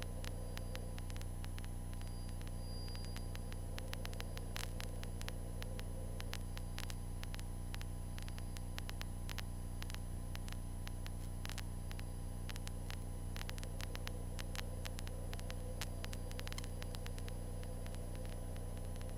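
Steady low drone in the cabin of a 1978 Cessna 152 in flight, with scattered faint crackling clicks of static.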